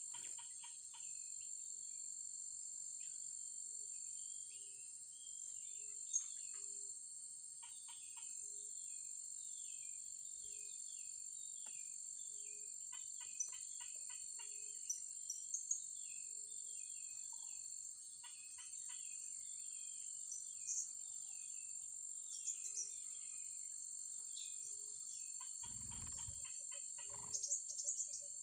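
Steady high-pitched insect drone with many short, high chirps of blue-crowned hanging parrots calling throughout; a brief low thump near the end.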